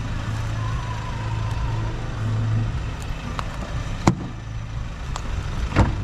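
A car's fuel filler flap is snapped shut with a sharp click about four seconds in. Near the end come two clicks from the rear door handle being pulled and the latch releasing, over a steady low hum.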